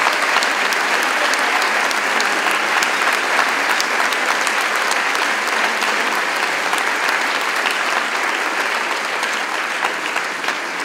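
An audience applauding: dense, steady clapping that fades a little near the end.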